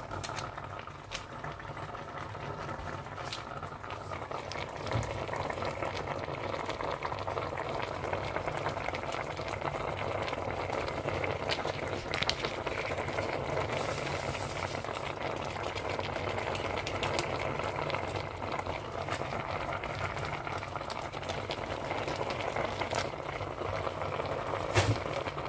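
Steady hiss from the stove, with scattered small clicks and rustles from seasoning sachets and the pot being handled.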